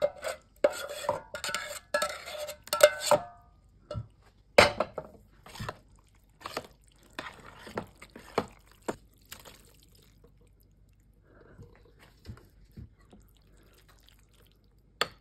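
Metal cookware and utensils in use. First the scrape and slosh of cheese sauce being poured out of a stainless steel saucepan onto macaroni, then a string of sharp clinks as a metal utensil stirs the macaroni against the sides of the pot, fading to faint stirring near the end.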